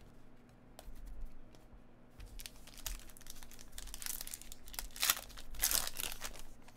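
Foil wrapper of a Panini Prizm basketball card pack being torn open and crinkled, a run of crackly rustling from about two seconds in that is loudest near the end, after a few light clicks of cards being handled.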